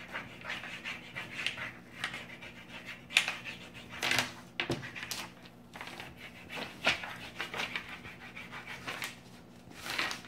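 Wax crayon scribbling back and forth on paper: a run of irregular scratchy strokes, a few of them sharper and louder.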